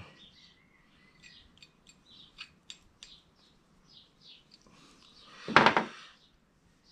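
Faint bird chirps in the background, then one short, loud clatter about five and a half seconds in as a screwdriver is set down on the workbench.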